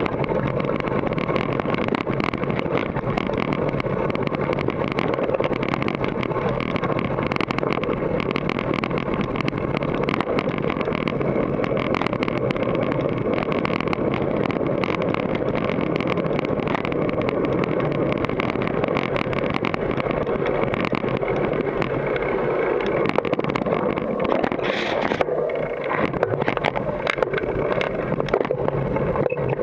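Steady loud wind rush and rumble on the microphone of an action camera riding down a rocky dirt trail on a GT Force Carbon mountain bike. Frequent sharp ticks and knocks come from the bike rattling over the trail, with a louder burst of clatter near the end.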